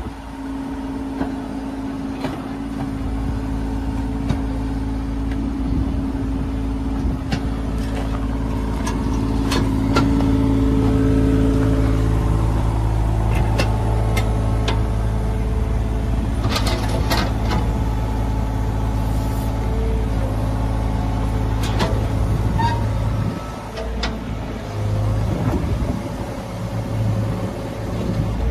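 John Deere 35G mini excavator's diesel engine running while the boom and arm are worked, with scattered clanks and knocks. A steady tone sits over the engine for the first half, and the engine eases off about three-quarters of the way through.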